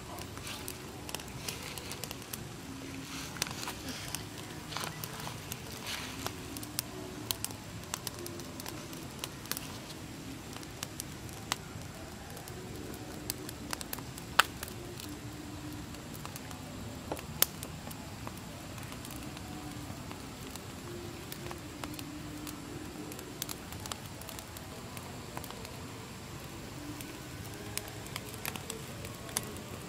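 Small twig fire crackling, with irregular sharp pops scattered throughout; the two loudest pops come a little before and after the middle.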